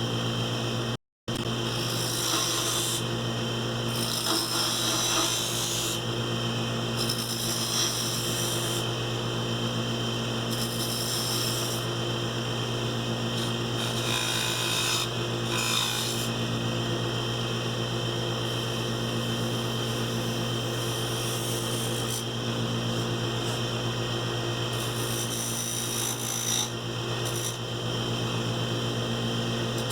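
Wood lathe motor running with a steady hum while a turning tool scrapes and cuts a spinning Alaska yellow cedar spindle; the rasping cut swells and fades as the tool works along the wood. The sound drops out briefly about a second in.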